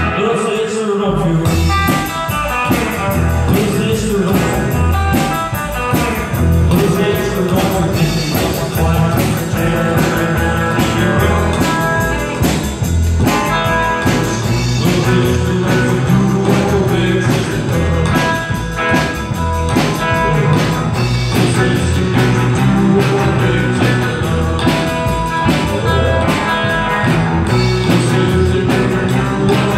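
Rockabilly band playing live: upright bass, electric guitar and drums driving a steady rock-and-roll beat.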